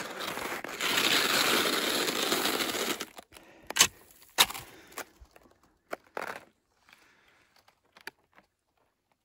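Salomon cross-country skis sliding and crunching over icy, crusty snow for about two seconds, then a few scattered sharp clicks and short crunches.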